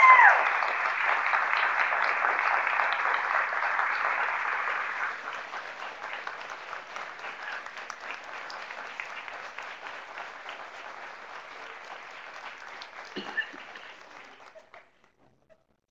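Audience applauding, loudest for the first five seconds, then dying down and stopping near the end, with a single knock about 13 seconds in.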